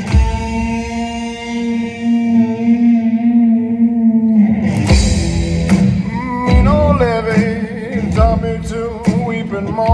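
A man singing rock with his own strummed electric guitar. A note is held for about four seconds, then he sings lines with a wavering vibrato over chords struck about once a second.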